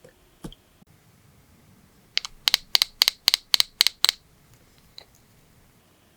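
A quick run of about eight sharp clicks, roughly four a second, with a single click before and a fainter one after, from small hard objects being handled during nail prep.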